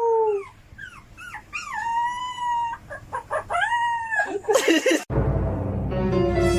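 Dog howling in a run of short, wavering howls that rise and fall in pitch. About five seconds in, a steady horn-like musical tone takes over.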